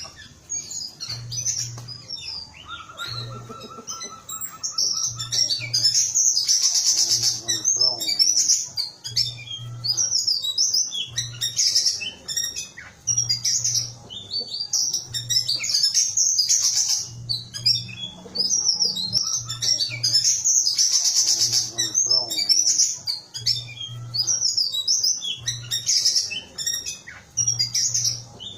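Small whistling thrush (ciung batu kecil) calling continuously: rapid runs of high, sharp chirps and whistles, with louder noisy bursts around 7, 17 and 21 seconds in. A faint, regular low pulsing runs beneath.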